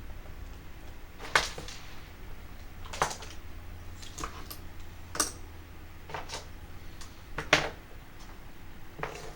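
Irregular sharp clicks and light knocks, about seven in nine seconds, of hard plastic radio-control car parts being handled and fitted during reassembly of a Tamiya TL01 chassis, over a steady low hum.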